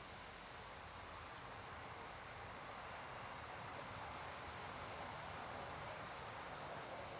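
Faint steady outdoor background hiss, with a small bird giving a short high chirping trill about two seconds in and again about four and a half seconds in.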